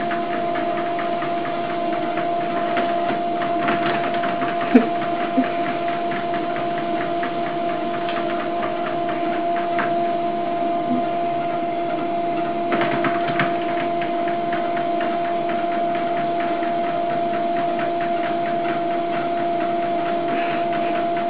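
Electric treadmill running: a steady motor hum with the belt whirring under it, and a few light knocks, one sharper about five seconds in.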